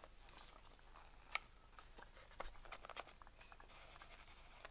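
Faint, scattered clicks and small handling noises of a camera body and lens being handled, over near-silent room tone.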